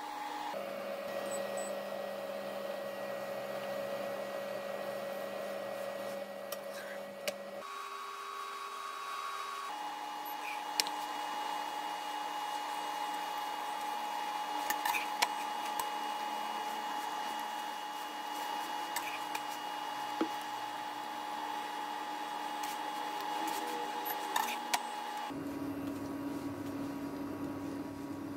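Steady electrical hum and whine of an induction cooktop heating a nonstick pan, its pitch jumping abruptly a few times, with a few light clicks of a metal spatula against the pan as a roti is turned and pressed.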